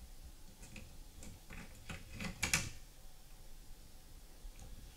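Faint plastic clicks and knocks of a print core being pushed into the print head of an Ultimaker S3 3D printer, several light ones in the first half and the loudest about two and a half seconds in.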